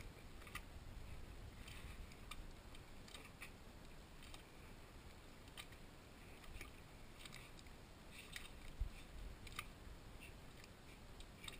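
Faint quiet ambience with scattered soft clicks and one low thump about nine seconds in.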